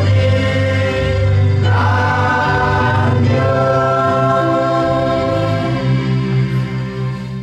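A congregation singing a hymn together in long, slow held notes. It closes on a final sustained chord that fades away near the end.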